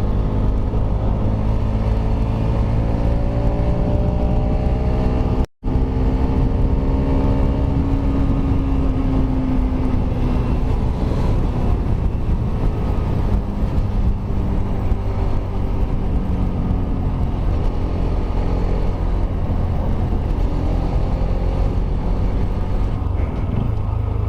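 Kawasaki Rouser RS200's single-cylinder engine running under way, its pitch climbing and easing with the throttle, over heavy wind noise. The sound cuts out briefly about five seconds in.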